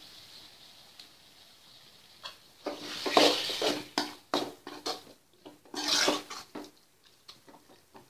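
A metal spoon stirring and scraping thick, wet masala around an aluminium kadai. Irregular scraping strokes and clinks against the pan start about three seconds in and are loudest twice, near the start and again about two-thirds of the way through. Before them there is only a faint sizzle.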